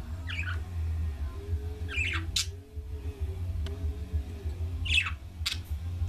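Budgerigars chirping: three short chirps spread across a few seconds, two of them followed by a sharp click, over a steady low hum.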